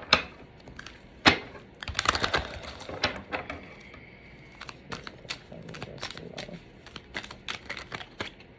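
Tarot cards being shuffled and handled, a run of sharp, irregular clicks and taps.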